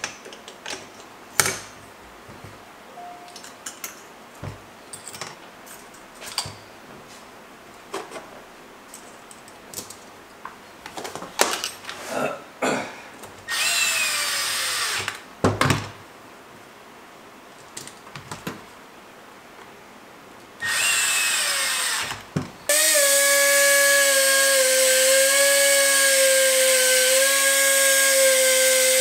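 Cordless electric screwdriver driving screws into a two-stroke carburetor in two short runs, its motor pitch dropping as each screw seats, between light clicks of small metal parts being handled. Near the end a louder steady whine with a hiss runs for about six seconds.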